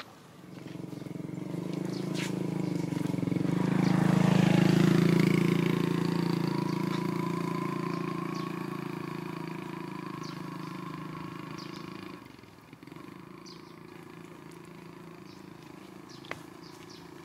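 Engine of a passing motor vehicle running at a steady pitch, growing louder over the first few seconds and then fading, cut off suddenly about twelve seconds in.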